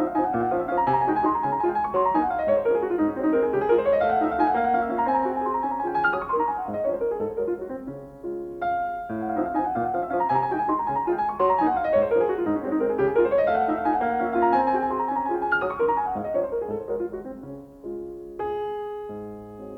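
Solo piano music: flowing runs of notes that sweep down and back up, the phrase starting over about halfway through.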